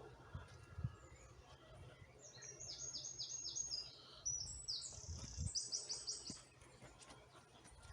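A small songbird singing two quick runs of high, rapidly repeated notes with a short break between them. A few low thumps are heard under it.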